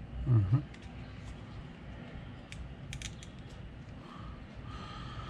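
A short low vocal sound near the start, then a few light plastic clicks as the GoPro Hero13 Black's side battery door is unlatched and swung open.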